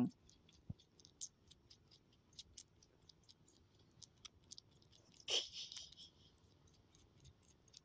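Faint scattered ticks and small clicks, with a brief rustle about five seconds in, from kittens shifting and nuzzling against a bare foot on a cloth sheet.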